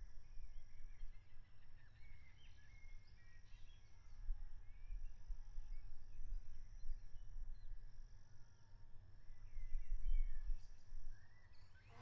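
Outdoor countryside ambience: scattered small birds chirping, a high insect-like buzz repeating about every second and a half, and a low rumble underneath.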